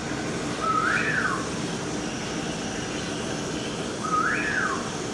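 A bird's whistled call, given twice about three seconds apart: each a short level note that rises sharply and then slides back down, over a steady background hiss.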